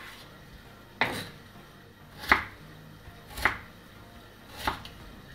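Kitchen knife cutting a raw potato into cubes on a wooden cutting board: four separate cuts, each a short slice ending in a knock of the blade on the board, about one every second and a quarter.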